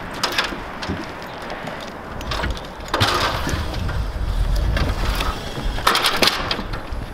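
Fiberglass stepladder knocking and clattering against wooden wall studs as it is carried through the framing and set down, with a louder clatter about six seconds in.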